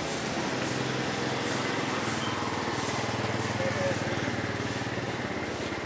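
Small motorcycle engine running steadily at an even pitch, in the constant din of street traffic.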